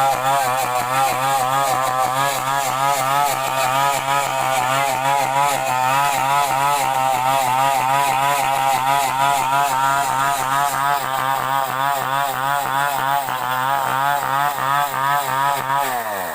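Small two-stroke chainsaw engine running steadily with a quick, regular wavering in its pitch, then winding down in pitch and cutting off near the end.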